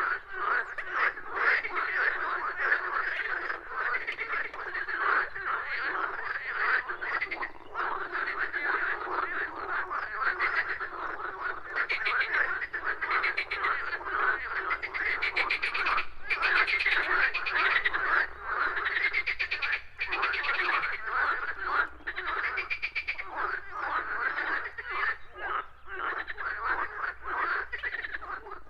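A dense chorus of many frogs calling at once, their pulsing croaks overlapping without a break.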